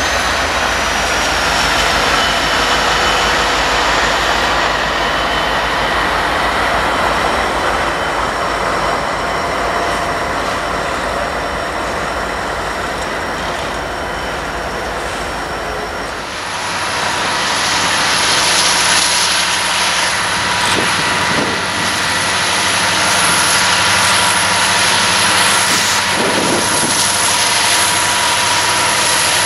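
Freight train rolling past: steel wheels on rail with thin, high wheel squeals as autorack cars go by. About halfway through the sound changes abruptly to an approaching freight train's diesel locomotives running, with steady wheel-and-rail noise.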